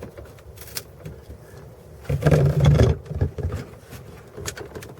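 Clicks and taps of plastic dash trim being worked loose by hand. About two seconds in comes a louder, rough noise lasting about a second.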